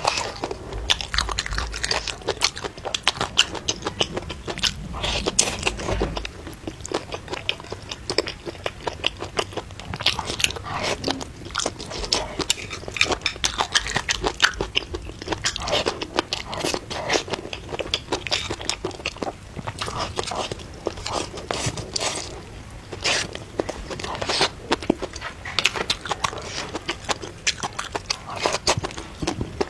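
Close-miked eating: repeated biting and chewing with crunching, in quick irregular bursts.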